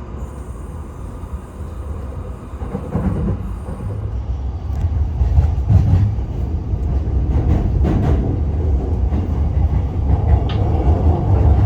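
Train rumbling and growing steadily louder as it approaches, with a few short clicks and knocks from the wheels and track.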